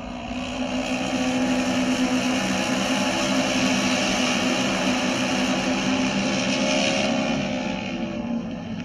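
Engines of several auto race motorcycles running together as they lap an oval track on their trial run before the race: a steady drone that eases slightly near the end.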